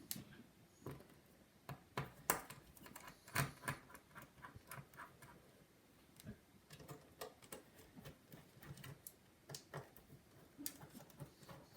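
Irregular small clicks and taps of a precision screwdriver and its metal bits being handled, a dense run of them in the first half and sparser ones later.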